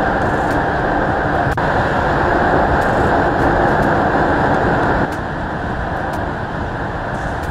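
Steady noise of a car being driven, engine and road noise blended with no distinct engine note. The level drops abruptly about five seconds in.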